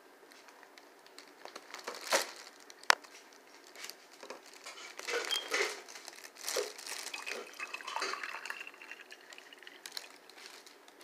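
Watermelon juice poured over ice into a glass: uneven splashing of liquid, with ice clicking and clinking, including one sharp clink about three seconds in.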